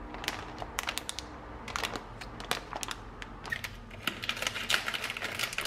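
Dry reginette pasta being handled, with irregular light clicks and clatter of several a second.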